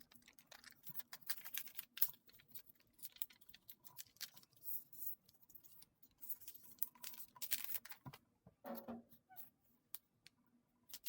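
A sheet of paper being folded and creased by hand: uneven crinkles, rustles and short brushing strokes as the folds are pressed flat.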